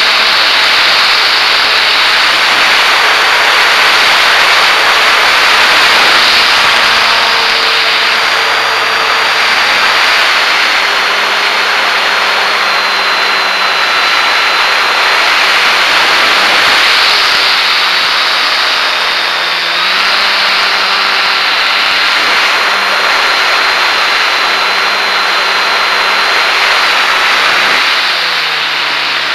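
Motor and propeller of a Top RC GeeBee R3R model racer in flight, heard from its onboard camera amid heavy wind rush. The whine steps up and down in pitch with throttle changes, then falls away near the end as the throttle is pulled back.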